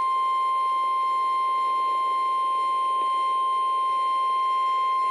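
NOAA Weather Radio 1050 Hz warning alarm tone: one steady, unbroken high tone over a faint hiss of radio static. It is the alert signal that precedes a broadcast warning, here a severe thunderstorm warning.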